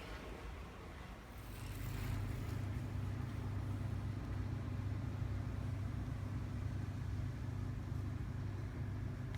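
Steady low hum of a running vehicle, growing louder about a second and a half in and then holding even.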